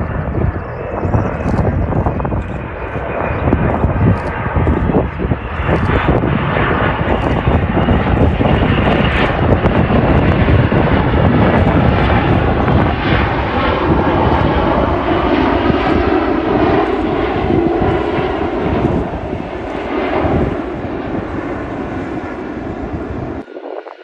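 Boeing 767 jet airliner landing: a steady jet-engine roar that swells as it passes close and touches down, with a deeper, heavier roar after touchdown. The sound cuts off abruptly near the end.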